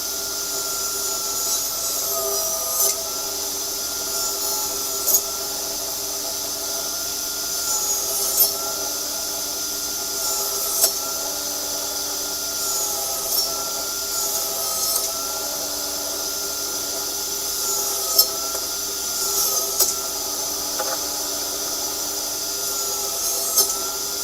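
Table saw running steadily while cutting wooden planks at a 45-degree angle. Its pitch dips briefly every two to three seconds as the blade bites into each piece, with sharp short clicks among the cuts.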